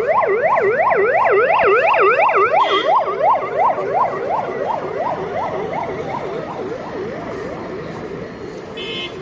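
Electronic sirens of police escort vehicles passing, a fast rise-and-fall wail about three times a second over road traffic, fading as the vehicles move away in the second half.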